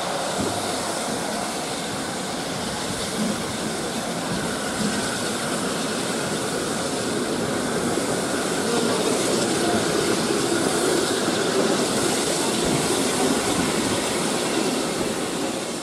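GWR Castle-class 4-6-0 steam locomotive 7029 Clun Castle rolling slowly past tender-first, a steady hiss over the rumble of its wheels on the rails. It grows a little louder in the second half and fades out near the end.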